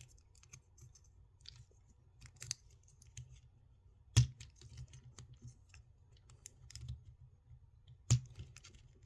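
Plastic parts of a Transformers action figure clicking as it is handled and transformed: scattered small ticks, with two sharper snaps about four seconds in and again near the end.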